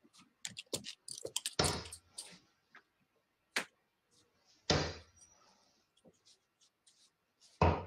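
Steel-tip darts striking a bristle dartboard: several sharp thuds a second or two apart, with light clicks and knocks between them.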